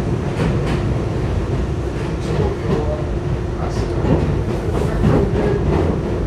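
R62A New York City subway car running along the track: a steady rumble with irregular clicks and clacks from the wheels over the rails.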